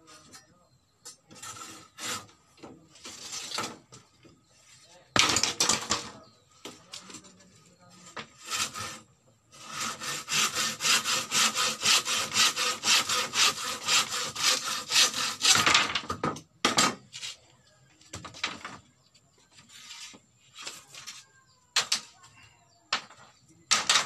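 Knife blade scraping and shaving a bamboo strip. A run of quick, even strokes, about five a second, lasts several seconds in the middle, with scattered single strokes before and after.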